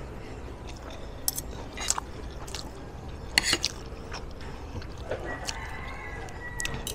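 Spoon and fork clinking and scraping on a ceramic dinner plate during a meal: a handful of short sharp clinks, the loudest about halfway through, over a steady low background. A faint steady high tone comes in near the end.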